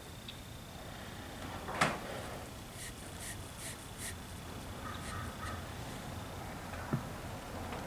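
Quiet handling noises over a steady background hiss: one sharp knock about two seconds in, a quick run of four or five light ticks, and a duller knock near the end.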